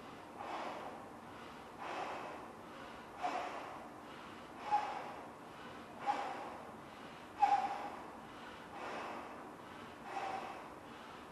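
A giant latex balloon being blown up by mouth: about eight rhythmic breaths, roughly one every second and a half, each with a short squeaky tone as air is pushed into the balloon.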